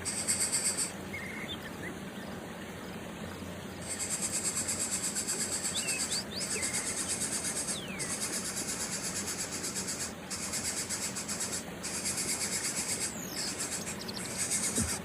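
Insects chirring in fast-pulsing, high-pitched trains that stop and start several times, with a few brief, thin, falling bird calls.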